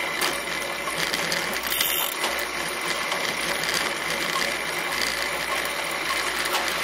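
A bicycle coasting: the rear freewheel's pawls tick rapidly and steadily over a constant hiss.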